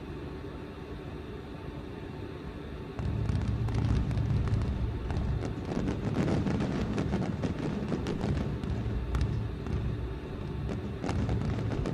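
Fireworks going off: a low, steady rumble, then from about three seconds in louder bursts with rapid crackling pops.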